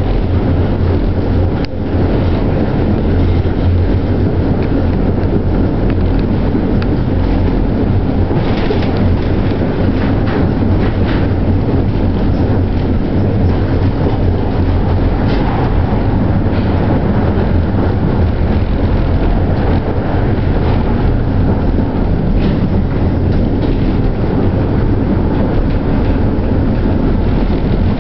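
Konstal 105Na tram running, heard from inside the passenger saloon: a loud, steady rolling rumble with a low hum, broken now and then by short sharp clacks from the wheels on the track.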